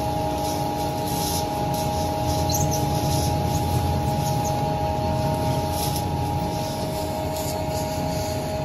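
Screw-type biomass briquette machine running steadily under load, extruding a sawdust briquette through its heated forming tube: a steady low hum with a few constant tones over it. A few faint high squeaks about two and a half seconds in.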